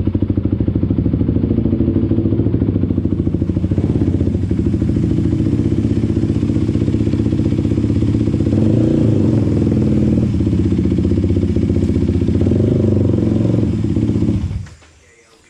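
Kawasaki KFX450R quad's single-cylinder four-stroke engine running with a pulsing exhaust note, its pitch shifting a little, then stopping about fourteen and a half seconds in.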